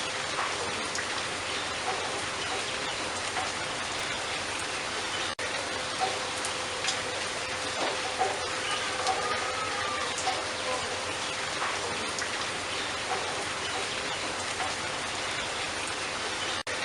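Steady rain hiss with a bird chirping now and then in short bending notes, a few in quick succession about halfway through.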